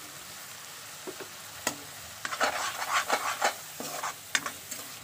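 A steel spoon stirring and scraping frying spice paste around a kadai, a run of quick scrapes starting a little under two seconds in, over a low sizzle of the masala cooking.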